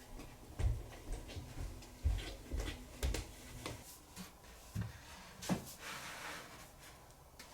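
Hardcover books being set and pushed into a wooden shelf: a run of soft low thumps in the first few seconds, then scattered knocks, taps and light scraping.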